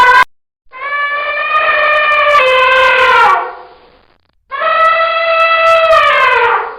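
Elephant trumpeting: a short tail of one call at the start, then two long, brassy calls, each sliding down in pitch as it fades.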